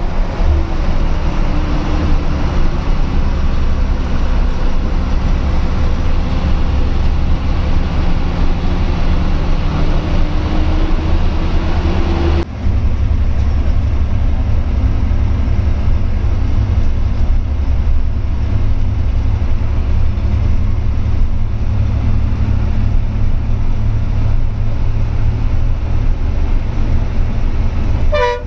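Bus diesel engine and road noise heard from inside the cabin at the front: a steady low rumble, the engine note rising for a couple of seconds before the sound changes abruptly about twelve seconds in. A short pitched tone sounds right at the end.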